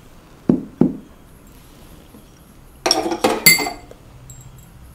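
A steel spoon clinking against glass spice bowls and an earthenware cooking pot: two dull taps about half a second in, then a quick run of ringing clinks around three seconds in.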